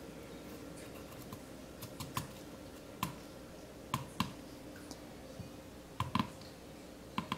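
Light sharp clicks, several in quick pairs, as toothpicks are pushed into a raw, crisp lotus root to pin its cut end back on.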